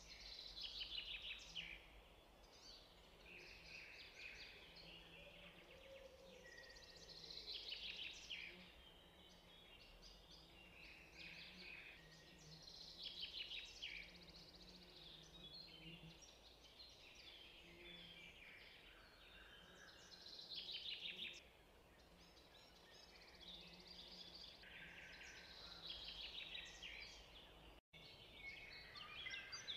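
Faint birdsong: a songbird singing short, rapidly trilled phrases every few seconds, over a soft background hiss.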